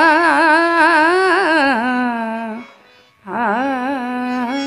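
A woman singing a Marathi abhang line in kirtan style, holding long ornamented notes with a heavy, wavering vibrato. The first phrase falls and fades about two and a half seconds in, and after a short breath she takes up a second held note.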